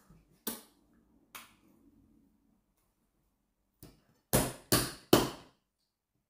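Eating sounds of plantain fufu being eaten by hand: a few soft, short sounds early on, then three loud, sharp smacks about half a second apart near the end.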